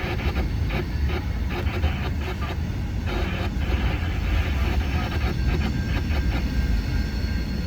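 Freight train cars rolling past: a steady low rumble with frequent short clicks and clanks of wheels and couplers.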